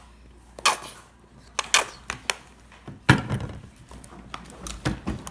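A plastic TV remote being picked up and handled after a fall: a string of short clicks and knocks, the loudest a heavier knock about three seconds in.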